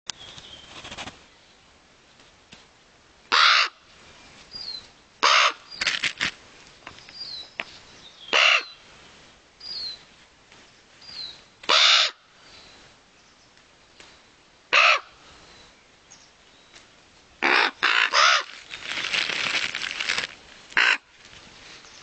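Crows cawing: about ten short, harsh calls every few seconds, three in quick succession near the end. Faint short, high, falling chirps from another bird sound between the caws, and there is a spell of rustling noise near the end.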